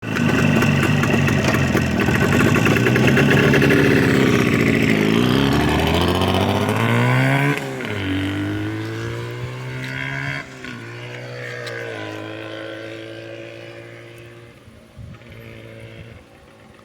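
Jawa 350 motorcycle engine accelerating, its pitch climbing and dropping sharply at gear changes about seven and a half and ten and a half seconds in. It then runs steadier and grows fainter.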